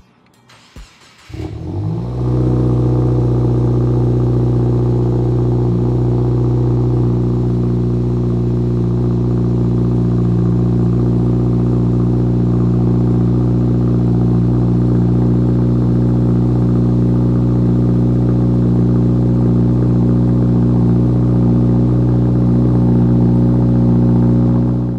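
2022+ Subaru WRX's turbocharged 2.4-litre flat-four starting up about a second in and settling into a steady idle, heard through an ETS Extreme catback exhaust with no mufflers and a resonated mid-pipe. The sound cuts off abruptly near the end.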